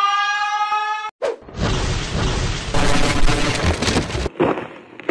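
Siren wail, slowly rising in pitch, that cuts off suddenly about a second in. It is followed by a loud, rumbling crash with shattering that lasts about three seconds, then a few scattered smaller impacts.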